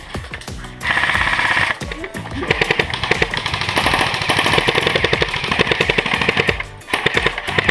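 Airsoft electric guns firing full-auto: a rapid, even clatter of shots in bursts. There is a short burst about a second in, a long one of about four seconds from the middle on, and another starting near the end, over background music.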